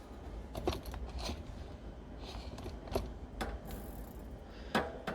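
A handful of light, irregularly spaced clicks and knocks as a bicycle rear wheel with its cassette is handled, over a low steady hum.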